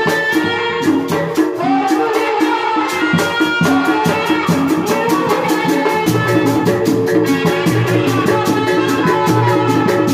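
Live tanji band music: a fast, steady percussion beat under pitched melodic lines, with a low bass part coming in about six seconds in.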